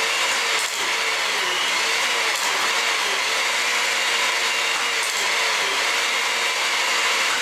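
Hydraulic torque-wrench pump running steadily under load, driving four HYTORC Avanti torque tools at once to tighten flange nuts, with a wavering hum under a loud, even machine noise and a few faint clicks.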